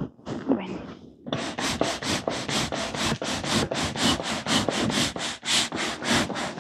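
Handheld air pump worked rapidly, a quick run of short hissing strokes about four a second, as if inflating something.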